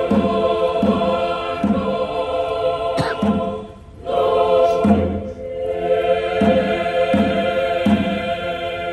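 Mixed choir singing held chords over a steady pattern of low drumbeats. The singing breaks off briefly a little before halfway and then comes back in.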